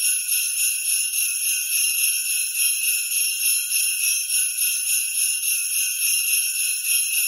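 Sleigh bells jingling in a steady shaken rhythm, about two to three shakes a second, bright and high with nothing else underneath.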